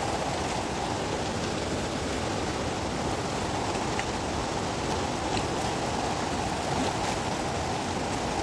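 Fast, turbulent rocky river rushing steadily over rocks, with a few faint ticks.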